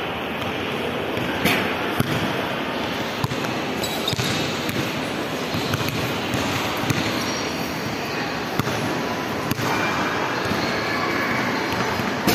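A basketball bouncing on a hard tiled floor: a few scattered thuds over a steady background hubbub of a large hall.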